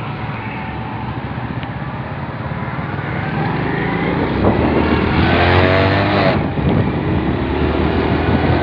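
Motorcycle engine running on the move, with road noise. Its note rises for a couple of seconds about halfway through as it speeds up, then it runs on loud and steady.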